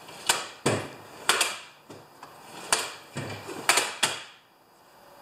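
Metal hand tools clinking and clattering in an open steel tool chest drawer as they are rummaged through: a run of sharp, irregular clacks that stops about a second before the end.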